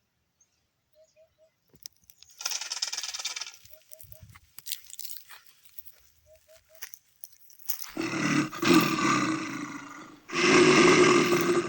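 Two long, loud animal-like roars, each about a second and a half, near the end, after a shorter, higher rasping burst about two and a half seconds in. Faint triple chirps repeat every few seconds in the background.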